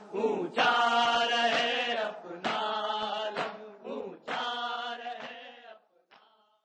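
A man's voice chanting an Urdu noha, a Shia lamentation, in long held phrases. The last phrase fades out near the end.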